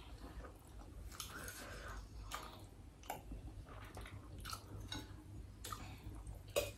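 Faint eating sounds: chewing and soft mouth smacks of people eating rice with their hands, with scattered small clicks. A sharper clink of a spoon against a steel pot comes near the end.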